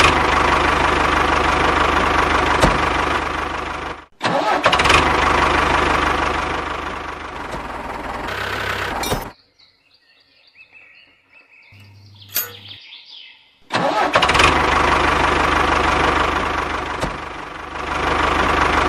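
A motor running steadily with a low hum. It cuts off abruptly about four seconds in and restarts at once, then cuts off again about nine seconds in, leaving a quiet spell with a faint click before it starts up again about four seconds later.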